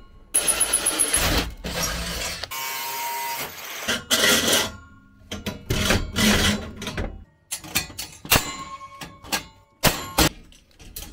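Metalwork assembly sounds: a cordless drill-driver running in short bursts, then knocks and clanks of steel frame tubes and threaded rods being handled and fitted, with two sharp metallic clangs near the end.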